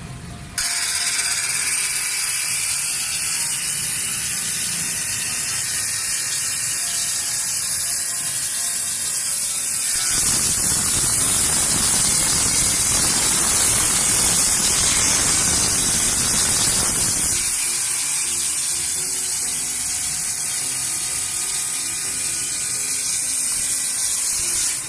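KongSung KSU-16H 405 mm cut-off saw, driven by a 3.7 kW three-phase motor, switching on suddenly and running with a steady high whine. From about ten seconds in, for roughly seven seconds, a louder, fuller grinding noise comes as the blade cuts through the workpiece, then it runs free again.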